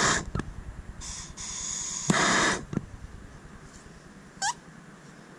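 Handheld gas torch flame hissing against a metal boat emblem in short bursts, loudest at the start and again about two seconds in. It then goes quieter, with one short rising chirp about four and a half seconds in.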